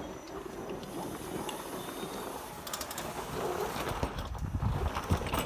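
Small electric machine's chain drive and motors running, a rattling mechanical clatter that grows louder, with sharp clicks and knocks near the end.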